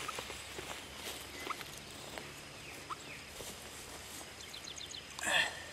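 Quiet outdoor field ambience with scattered faint rustles and ticks, a couple of short faint chirps, and one louder brief swish about five seconds in.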